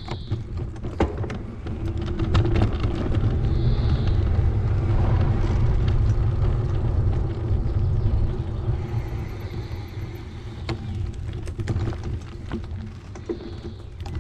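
Riding noise from a bicycle-mounted camera: a low rumble of wind on the microphone and tyres on the path, with scattered rattling clicks. It swells through the middle and then eases off.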